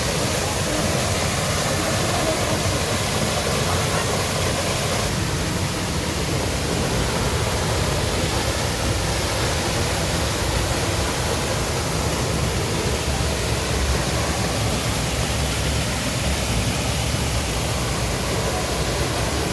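Düden Waterfall's water pouring down in a steady, loud rush of noise.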